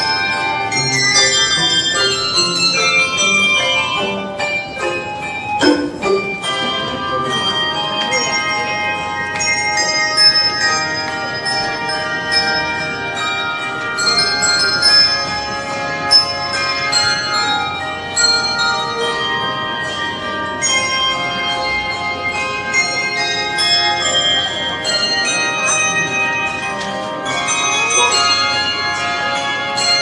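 Handbell choir playing a piece: many tuned handbells struck in turn and together, ringing on over one another in chords, with runs of notes stepping downward.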